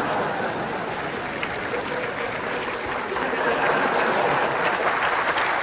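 Large seated audience applauding and laughing, a steady crackle of many hands clapping.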